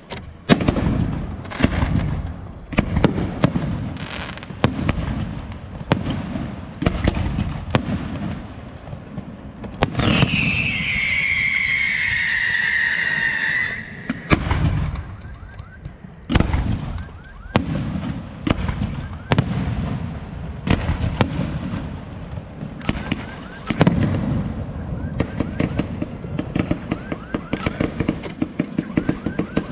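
Aerial fireworks going off in a steady run of sharp bangs. About ten seconds in, a long whistle slowly falls in pitch for about four seconds. Near the end, a quick rapid crackle.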